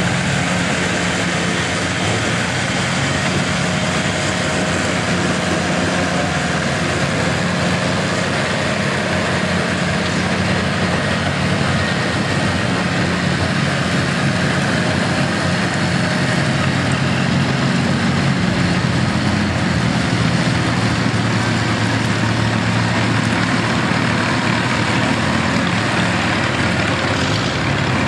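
Antique farm tractor engine running steadily at low speed, with no revving.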